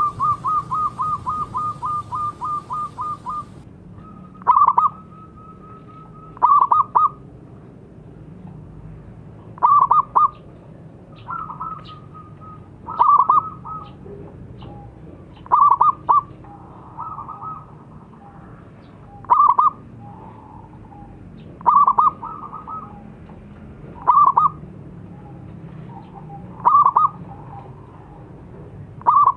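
Zebra dove cooing. It starts with a quick, even run of about a dozen short notes, then repeats a short rolling coo phrase every two to three seconds, with softer cooing between some of the phrases.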